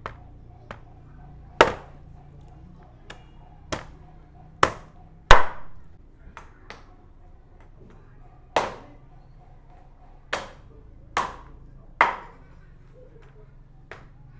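Knife chopping on a cutting board: about a dozen hard strikes at uneven spacing, roughly one a second, each with a short ring, the loudest about five seconds in.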